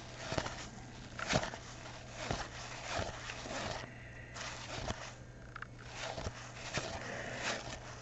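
A pack of 1991 Donruss baseball cards being opened and handled: the wax-paper wrapper crinkling and the cards rubbing and flicking against each other as they are pulled out and fanned, in short irregular crackles.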